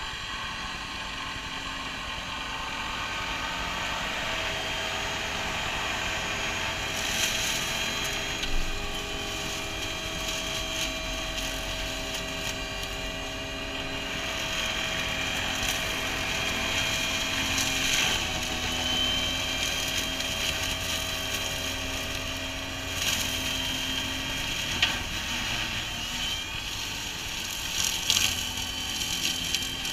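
Tractor-driven Shelbourne flail hedge cutter running under a New Holland tractor's engine. The steady drone carries a high whine while the flail head chops grass and reeds, with sharp cracks every few seconds as the flails strike material.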